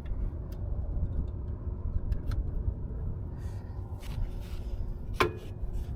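Steady low rumble, with scattered light clicks and rustles of tools being handled and a brief sharp squeak about five seconds in.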